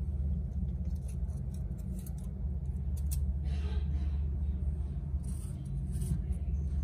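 A steady low background hum, with faint clicks and a short rustling scrape about three and a half seconds in as a flap disc's abrasive cloth flaps are picked up and handled.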